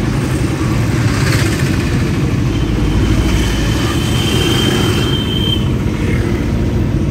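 Steady road and engine noise of a moving vehicle, heard from inside the cabin, with a faint high steady tone for a few seconds mid-way.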